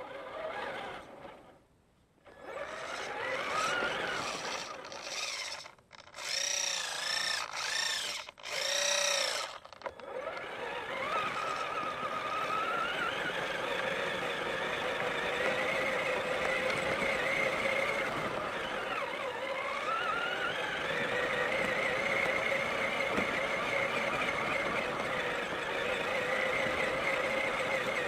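Traxxas Summit RC truck's electric motor and geartrain whining. About ten seconds of short throttle bursts, each rising and falling in pitch, give way to a steady whine at speed that wavers up and down.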